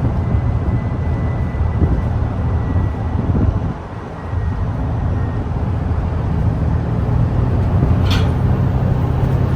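Cabin sound of a Hino Blue Ribbon City Hybrid diesel-hybrid city bus under way: a loud, steady low drivetrain and road rumble. A thin high steady whine fades out about halfway through, the rumble eases briefly near the middle, and a single short sharp click comes near the end.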